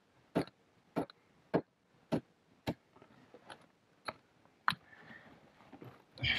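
A small hand pick striking soft, moisture-rotted cave rock in steady blows about twice a second, eight strikes in all, then a short stretch of faint scraping: digging out a blocked cave crawl to make it passable.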